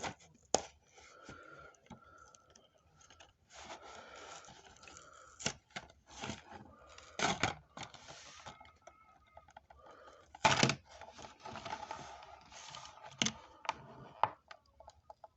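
Toy car packaging being worked open by hand: irregular plastic crinkling and scraping, broken by sharp clicks and snaps. The loudest snap comes about ten and a half seconds in.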